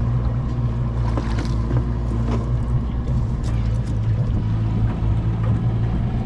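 Small boat's outboard motor running steadily at low speed, with a few knocks as people and dogs move about in the boat.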